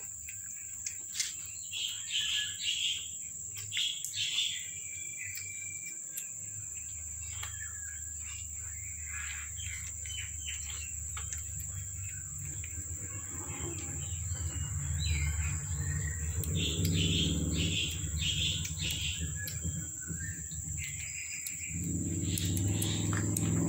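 Birds chirping in short runs of high calls, over a steady high insect drone. A low hum comes in after several seconds and grows louder toward the end.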